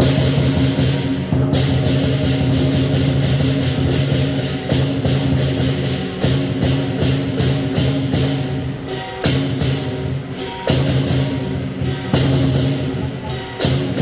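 Lion dance percussion: a large lion drum with clashing cymbals played in a fast, driving rhythm, with a few short breaks and fresh accents.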